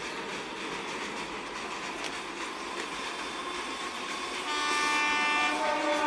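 Electric multiple unit local train running steadily over a truss bridge. About four and a half seconds in, a train horn sounds loud, and about a second later it drops to a lower pitch and holds.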